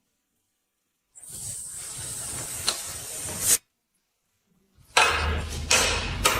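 A steady hiss lasting about two seconds, ending in a sharp click. After a short silence comes a louder rumbling noise broken by several knocks.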